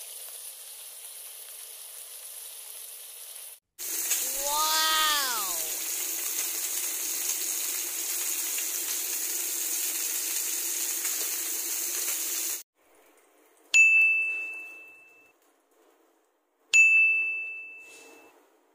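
Tuna steaks sizzling in oil on an electric grill plate, louder after a cut about four seconds in, with a brief pitched sound rising and falling over the sizzle shortly after. Then two identical bell-like dings about three seconds apart, each ringing out.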